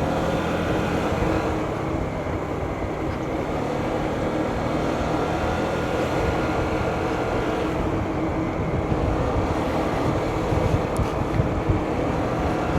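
A vehicle engine running steadily while riding along a road, over continuous wind and road noise.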